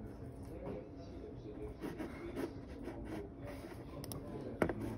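Soft clicks of a computer mouse and keyboard in use at a desk, over a low room murmur, with a sharper click near the end.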